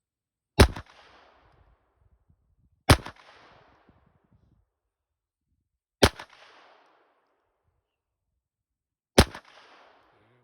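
Glock 44 .22 LR pistol fired four times in slow, aimed fire, about two to three seconds apart; each shot is a sharp crack followed by a short echo.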